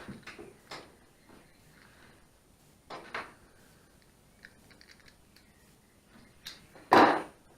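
Handling sounds of an old rubber handlebar grip being worked off an ATV handlebar: scattered light clicks and rubbing, with a louder short rasp near the end.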